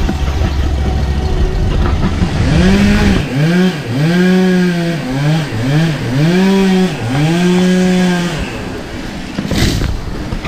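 Chainsaw felling trees, revved up and down in about seven quick throttle blips, after a few seconds of steady running.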